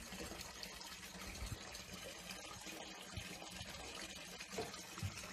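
Faint steady running water at a small fish pond, with a low steady hum underneath and a few soft knocks.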